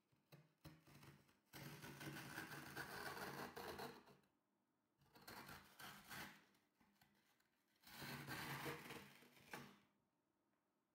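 Metal ice cream scoop scraping across a frozen coffee and condensed-milk mixture in a glass baking dish, shaving it into flakes, in three strokes of a few seconds each.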